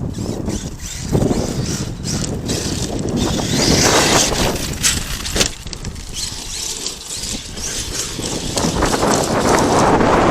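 Arrma Kraton 8S brushless electric RC monster truck driving over dirt and gravel at a construction site, its tyres and motor noise rising and falling as it is throttled. Wind buffets the microphone.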